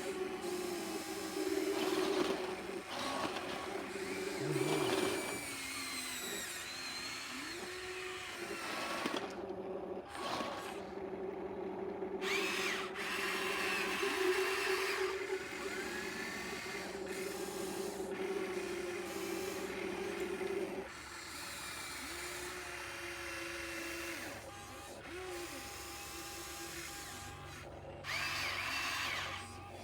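Small electric motor whining in spells, its pitch shifting as it speeds up and slows down, stopping and starting again several times.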